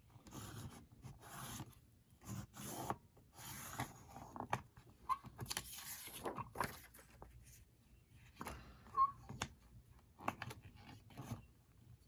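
Paper and bookbinding tools being handled on a worktable: irregular rustles, scrapes and light taps, while the hinge paper is marked and scored.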